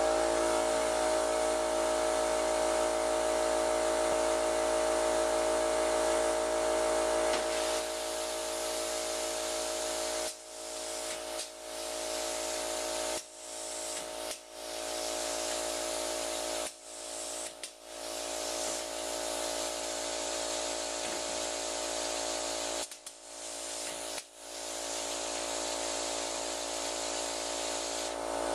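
Animatronic eel with a spitter running: a steady mechanical hum over a hiss. The sound drops out briefly several times between about ten and twenty-four seconds in.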